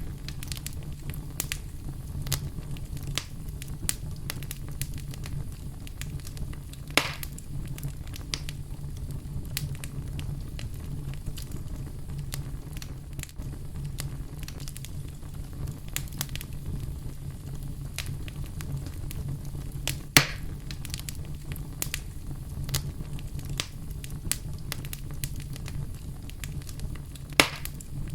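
Fire burning in a fireplace: a steady low rumble of flames with frequent small crackles and three louder pops spread through.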